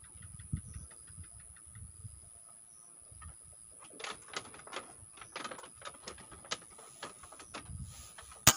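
A bullpup PCP air rifle fires once near the end: a single sharp crack, the loudest thing by far. Before it come faint knocks, clicks and rustles, over a steady high insect whine.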